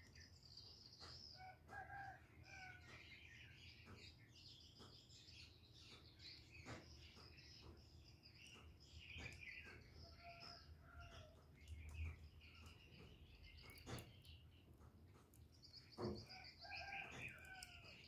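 Faint chirping and short calls of birds in the background, with a few sharp clicks scattered through.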